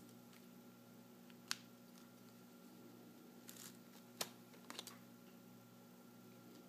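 A Pentax 18–135mm zoom lens being twisted off a Pentax K-5 DSLR's bayonet mount: a sharp click about a second and a half in, a short scrape, then a click and a quick double click about two-thirds through, over a faint steady hum.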